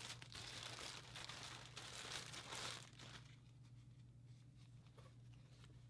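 Thin plastic bag crinkling as a T-shirt is handled and pulled out of it; the crinkling stops about three seconds in.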